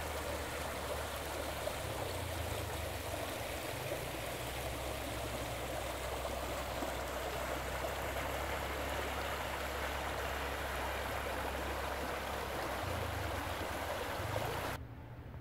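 Creek water rushing steadily over a shallow, stony riffle. It cuts off abruptly near the end.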